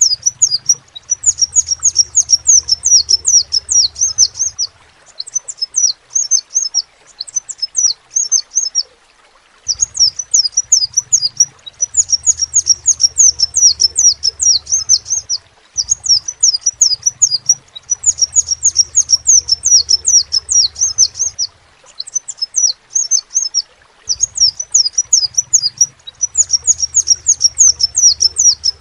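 Crimson sunbird singing: rapid, high-pitched twittering phrases a few seconds long, broken by short pauses of about a second.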